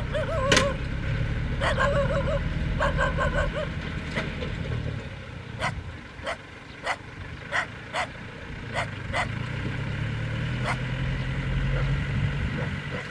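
Yanmar EF725T tractor's diesel engine running steadily while pulling a mini round baler that is baling straw, its low hum fading about midway and coming back near the end. Over it come short wavering cries early on, then a string of short sharp sounds, roughly one or two a second.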